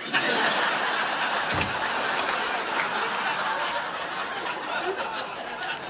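Studio audience laughing in a long, full wave that starts at once and fades away near the end.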